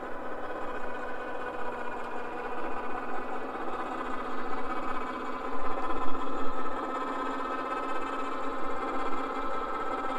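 Background synthesizer music: a steady drone of held electronic tones that barely changes.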